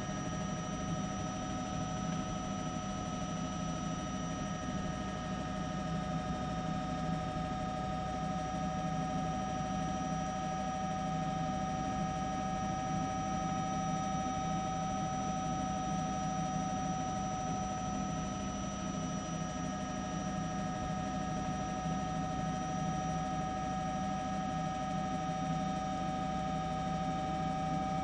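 Steady drone of an aerial camera aircraft's engine and rotor, most likely a news helicopter, with a low rumble and several high whining tones that hold almost constant pitch.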